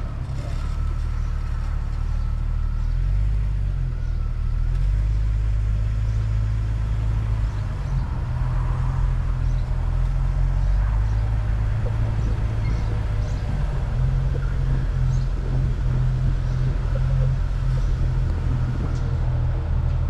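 A 1999 Jeep Cherokee XJ's engine running at low speed, heard as a steady low drone that shifts in pitch a few seconds in.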